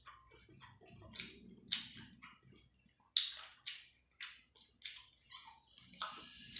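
Close-miked wet chewing and mouth smacks from eating rice and curry, in short, sharp smacks at irregular spacing, roughly every half second. A steady hissing background comes in near the end.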